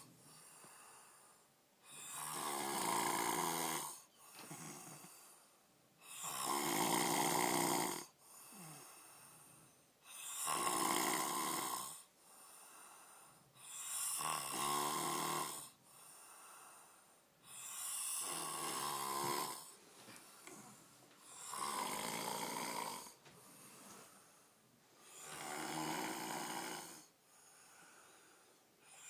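A man snoring after a few drinks: a loud snore lasting about two seconds comes roughly every four seconds, seven times over, with a quieter breath between each.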